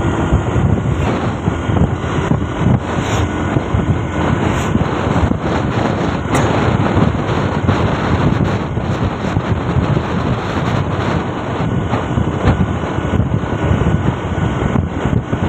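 Wind buffeting the microphone of a camera on a moving motorcycle: a loud, steady, rough rushing noise that flutters constantly, with no break.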